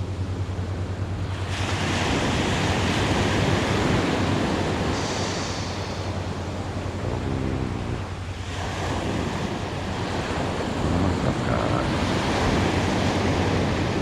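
Ocean surf breaking on a sandy beach, the wash swelling twice, about seven seconds apart, with wind rumbling on the microphone underneath.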